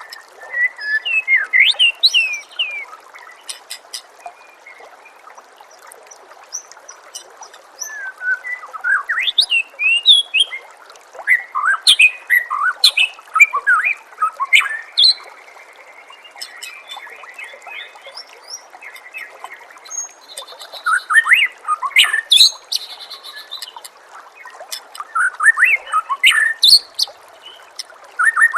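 White-rumped shama (murai batu) singing in several bursts of quick, varied whistled phrases, with pauses between, over a steady trickle of running water.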